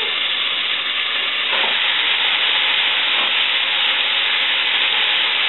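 Strips of collard greens added to a hot pot on the stove, sizzling steadily.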